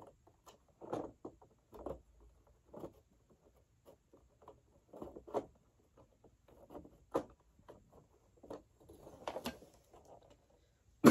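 Irregular light plastic clicks, knocks and rustles, roughly one a second, of hands working to fit the belt and brush roll into the base of an upright vacuum cleaner.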